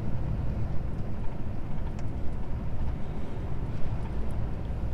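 Semi-truck's diesel engine and road noise inside the cab while driving: a steady low drone.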